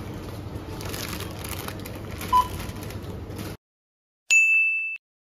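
Checkout background noise with one short electronic barcode-scanner beep about two and a half seconds in. After a sudden cut to silence there is a single high electronic ding lasting under a second near the end.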